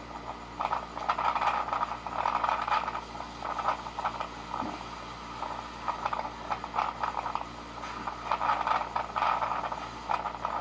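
Typhoon wind gusting in uneven surges, with loose material rattling and clattering throughout.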